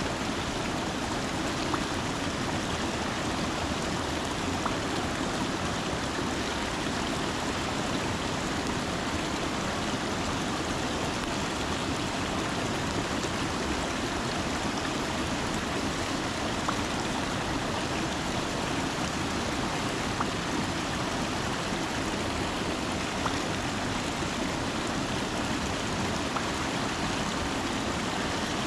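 Mountain stream water running steadily, an even, unbroken rush.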